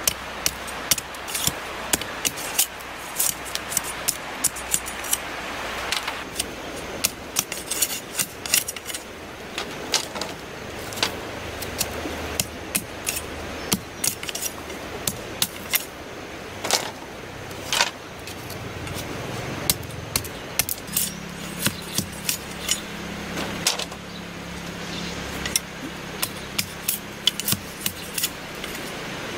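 Wooden stakes being handled and set in the ground: a string of sharp, irregular clicks and knocks, one or two a second, over a steady background hiss. A low steady hum comes in about two-thirds of the way through.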